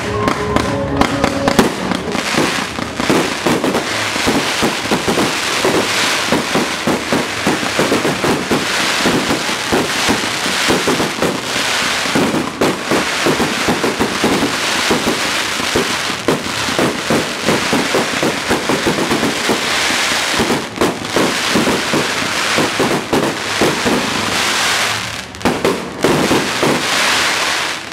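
Fireworks display: a dense, continuous barrage of aerial shell bursts and crackling stars, many sharp pops and bangs running together, with a short lull near the end.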